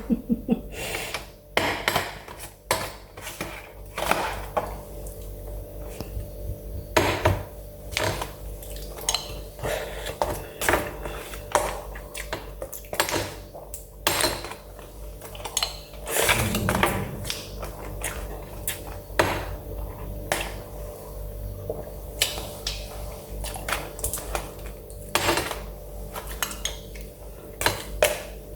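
Spoon and fork clinking and scraping against a plate while eating, in irregular sharp clicks, over a steady low hum.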